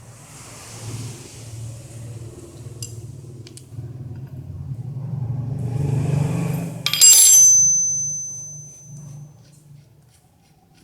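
Work on a walking-tractor clutch as its lock nut is taken off: a low, machine-like drone builds over several seconds. About seven seconds in comes a sharp metal clank that rings on for a couple of seconds, then fades.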